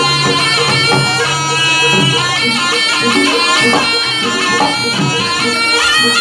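Jaranan gamelan music led by a slompret, the Javanese shawm, playing a loud, ornamented melody over a low steady drone and an even beat.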